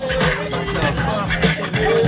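Hip hop track with a rapped vocal over a beat, coming in louder right at the start.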